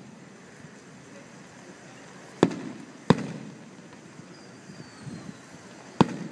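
Aerial firework shells bursting: three sharp bangs, two close together about two and a half seconds in and a third near the end, each trailing off in an echo.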